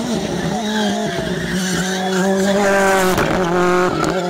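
Rally car engine running hard at high, steady revs as the car drives past, with a brief dip in the engine note about three seconds in.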